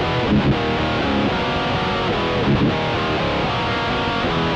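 Background music led by guitar, playing a run of changing notes at an even level.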